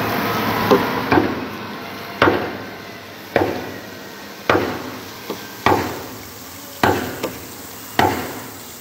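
A pickaxe striking salt caked on the lining of a ship's cargo hold, a steady series of sharp blows about one a second, each followed by a short fading trail of noise.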